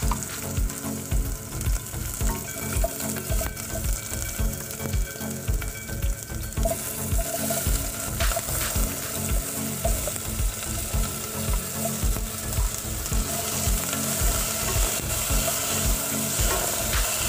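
Garlic and onion sizzling as they are sautéed in a stainless steel pot and stirred. About seven seconds in, sliced tomatoes are tipped in and the sizzle gets stronger.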